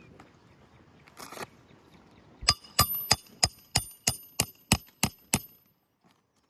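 Hammer driving a roofing nail under a lifted asphalt shingle: ten quick, evenly spaced blows, about three a second, each with a short metallic ring, after a brief scrape about a second in.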